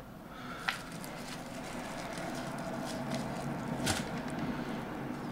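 Handling of small e-liquid bottles and their packaging: light rustling with two sharp clicks, one about a second in and a stronger one near four seconds in.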